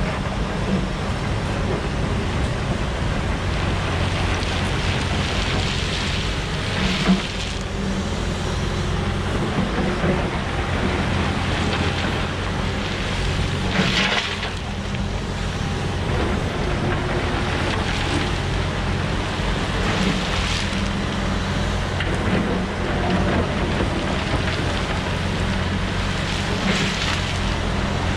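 Volvo EWR150E wheeled excavator's diesel engine running steadily under hydraulic load, with a rushing swell of noise about every six or seven seconds as it works through repeated dig-and-load cycles.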